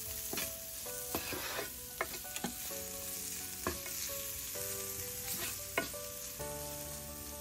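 Sliced onions and spices frying in a little oil in a nonstick pan with a light sizzle, while a spatula stirs and scrapes them across the pan in irregular strokes.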